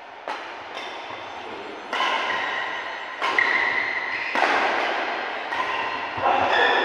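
Badminton rackets striking a shuttlecock: a run of about seven sharp knocks, roughly one a second, each ringing on in an echoing sports hall.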